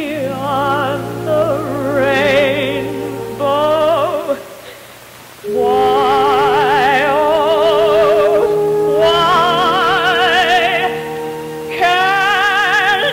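A woman singing a slow song with wide vibrato over musical accompaniment. The phrases swell and break off about four seconds in, then resume with a long held note.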